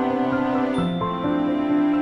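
Calm background music: gentle new-age style held notes, with a note change about a second in.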